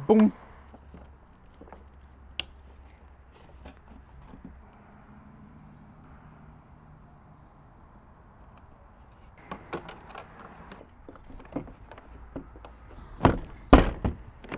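Hands fitting the battery and fittings into a kayak: a sharp click a couple of seconds in, some rattling of parts further on, and several loud knocks near the end.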